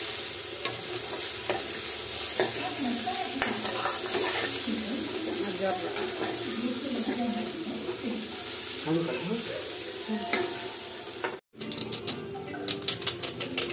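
Boiled chickpeas and potato pieces sizzling steadily as they are fried in oil in a kadhai, with a steel ladle stirring and scraping through them. Near the end the frying stops abruptly and is followed by a quick run of light clicks and metal clinks from a steel bowl and spice packet over a pressure cooker.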